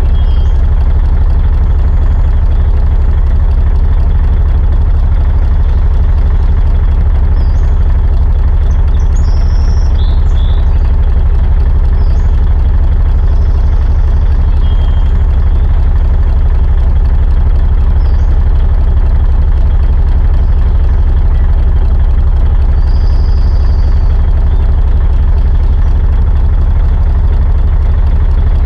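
Truck diesel engine idling steadily, a loud, even low rumble with no revving.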